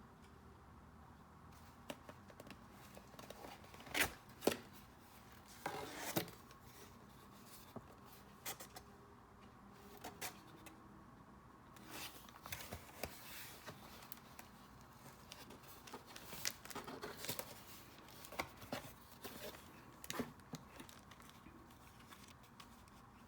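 Packaging being opened and handled by hand: on-and-off rustling and crinkling with sharp clicks and taps, loudest about four to six seconds in.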